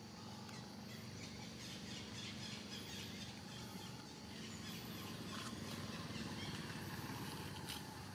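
Outdoor forest ambience: a steady low hum under a continuous hiss, with faint, scattered high chirps.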